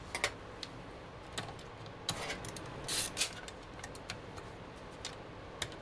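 Hands working small metal and plastic parts on a desktop PC motherboard inside the open case while the M.2 drive is taken out. Scattered light clicks and rattles, loudest in a short cluster about three seconds in.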